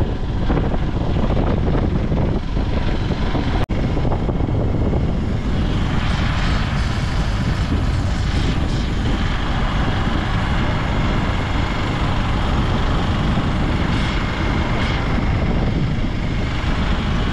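Hero Xpulse 200 4V motorcycle on the move: its single-cylinder engine running steadily under a heavy rush of wind on the microphone. The sound breaks off for an instant a little under four seconds in, and from about five seconds on it carries more hiss.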